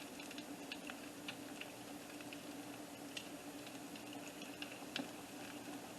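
Hot frying oil crackling faintly, a soft steady sizzle with scattered small pops, over a low steady hum.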